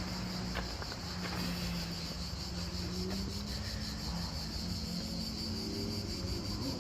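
Insects chirring steadily in a high, even drone, over a low steady hum.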